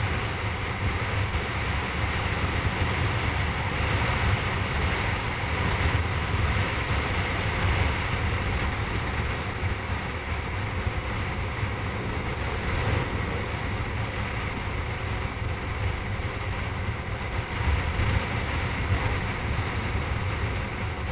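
Wind rushing and buffeting over the camera microphone on a motorcycle cruising at highway speed, with the bike's engine and tyre noise running steadily underneath.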